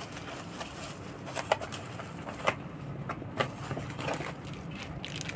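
Soft rustling with a handful of light, scattered clicks and taps as bubble-wrapped packaging is handled and unpacked.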